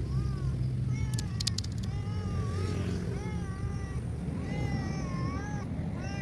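Tabby-and-white cat meowing over and over, about a call a second, each short meow rising then falling in pitch, over a steady low rumble. A quick run of sharp clicks comes about a second in.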